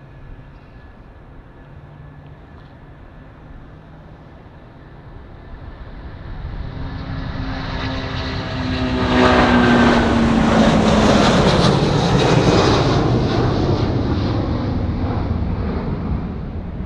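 Airplane engines growing louder as the aircraft approaches, loudest a little past halfway through as it passes, their tones dropping in pitch, then slowly fading as it moves away.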